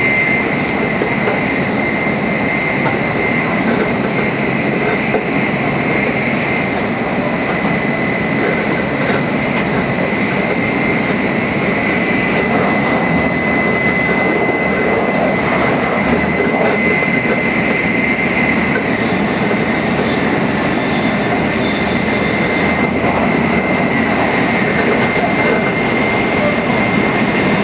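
Tokaido Shinkansen Nozomi train running at high speed: a steady rushing noise with a thin high whine held at one pitch, unchanging throughout.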